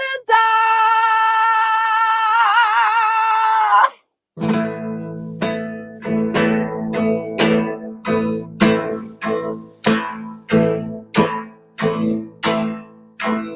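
A long sung note held with vibrato, cut off sharply about four seconds in. Then a guitar is strummed in steady, evenly spaced chords, a little under two strokes a second.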